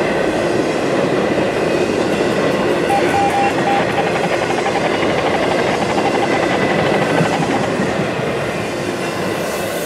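Intermodal freight train's container and trailer cars rolling past at speed: steel wheels running on the rails, loud and steady.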